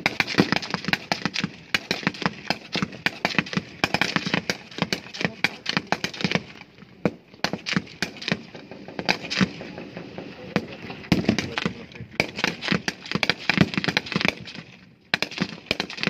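Rapid, irregular gunfire from several rifles firing at once: sharp cracks overlap, often several a second. The fire thins out for a few seconds mid-way, picks up again and pauses briefly near the end.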